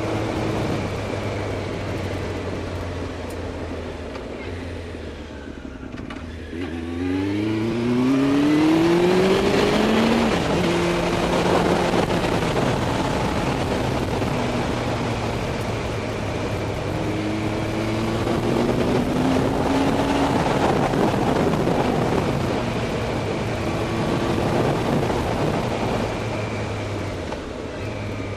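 Yamaha Fazer motorcycle engine heard from a helmet camera while riding, under a layer of wind noise muffled by a sock wrapped around the camera. The engine note rises as the bike accelerates about seven seconds in and again a little past halfway, between stretches of steady cruising.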